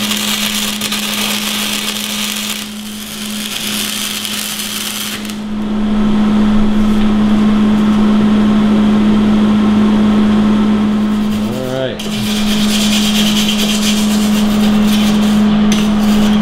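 Wire-feed (MIG) welder arc crackling and hissing in long runs as steel patch plates are welded onto a mower deck, with short pauses between beads. A steady low hum runs underneath.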